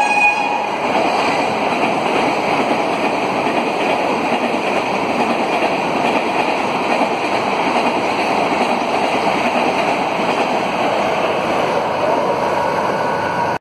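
Steady rushing noise of a passing express train's coaches running over the rails, with the end of the locomotive's horn dying away in the first second.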